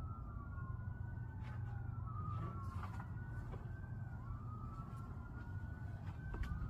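Emergency-vehicle sirens wailing, their slow rising and falling tones overlapping, over a steady low rumble, with a few light knocks.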